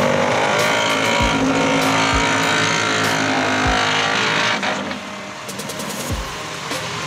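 Range Rover engine running steadily at low speed as the car crawls over rock, with a few low thumps.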